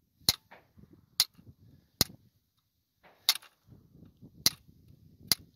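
Sharp taps of a brass-ended tool knapping the flint held in a flintlock musket's cock, six strikes about a second apart. Each strike chips flakes off the flint's edge to resharpen a dull flint that failed to spark.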